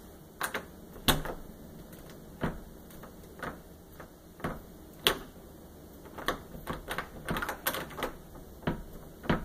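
Brass doorknob and latch clicking and rattling as a humidity-swollen wooden door is turned and tugged but stays stuck in its frame. It makes a string of irregular sharp knocks, about one a second, bunched closer together a little past the middle.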